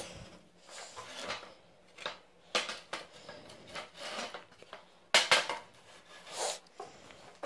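Weathered pallet-wood boards knocking and clattering against one another as they are pulled from a pile and set down on a folding workbench: a series of separate wooden knocks, the loudest about two and a half and five seconds in.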